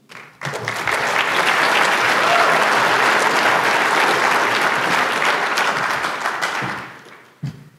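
Audience applauding: it starts about half a second in, holds steady, and dies away near the end.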